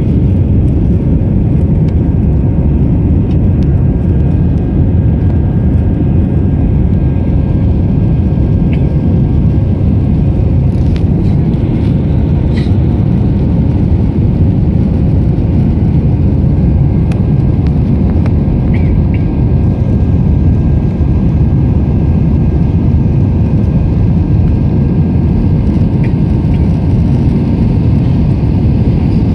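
Jet airliner cabin noise heard from a window seat: the engines and the airflow over the fuselage make a loud, steady, deep rush with a faint even hum, unchanging throughout.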